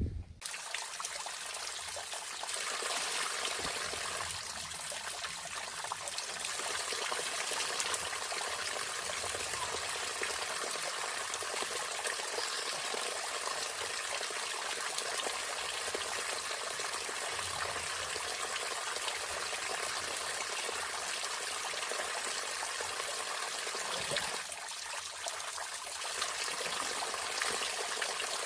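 A stream running, a steady rushing wash of water.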